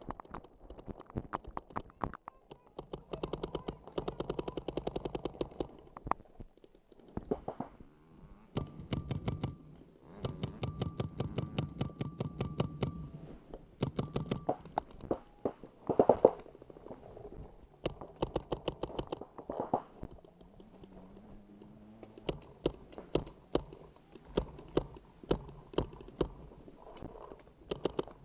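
Paintball markers firing in rapid strings of sharp shots, several strings broken by short pauses, with one louder hit about sixteen seconds in.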